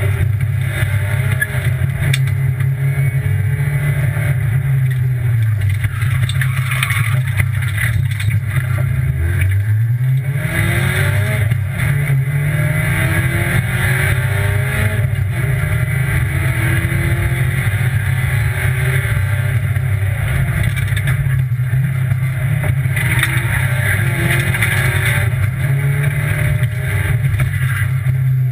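Rally car engine heard from inside the cockpit, running hard at high revs on a special stage. The pitch dips briefly about five seconds in, then climbs steeply around nine to twelve seconds in as the car accelerates again.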